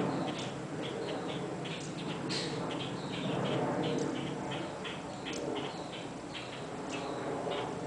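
Birds chirping in short, high, repeated notes, several a second, over a steady low background noise.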